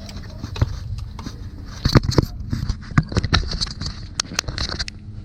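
Irregular clicks, taps and short scrapes of hand tools and metal parts being handled at the front of a 3.6L V6 engine during timing chain work.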